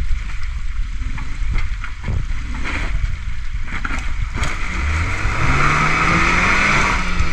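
Suzuki Jimny Sierra (JB74)'s 1.5-litre four-cylinder petrol engine pulling under load up a steep muddy bank, rising in pitch from about halfway through, with scattered clicks.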